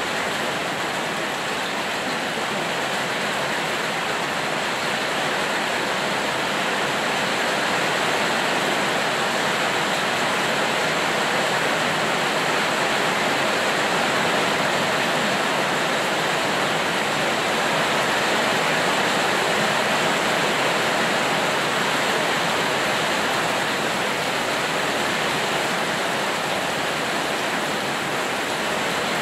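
Rain falling steadily: a dense, even hiss with no single drops or other sounds standing out.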